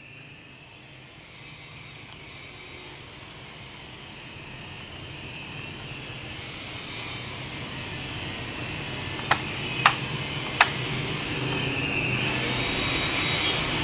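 Small toy remote-control helicopter's electric motor and rotors whirring in flight, growing steadily louder as it comes nearer. Three sharp clicks come in quick succession about nine to ten seconds in.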